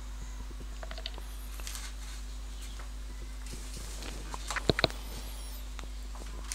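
Fingers pressing and rubbing along an adhesive magnet strip on a window frame, with faint taps and a quick cluster of sharp clicks about two-thirds of the way through, over a steady low hum.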